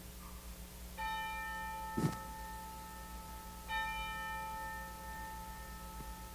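A bell struck twice on the same note, about two and a half seconds apart, each stroke ringing on with its overtones. A short low thump sounds between the two strokes.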